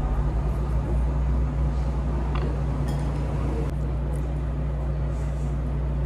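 Steady low hum, like a motor or engine running, with a few light clinks of glassware about halfway through.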